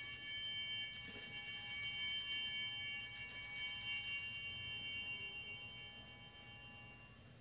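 Altar bells (Sanctus bells) rung at the elevation of the chalice after the consecration: a cluster of small bells is shaken again about one and three seconds in, and the ringing fades away near the end.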